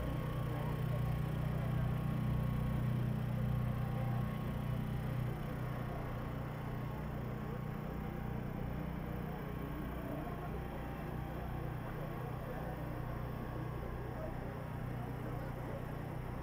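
An engine running with a steady low hum, a little louder for the first five seconds, over a faint murmur of voices.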